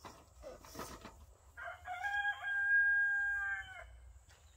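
A rooster crowing once, one long held call of about two seconds that starts about one and a half seconds in. Before it come light rustling and knocks as a hay bale is settled onto a cart.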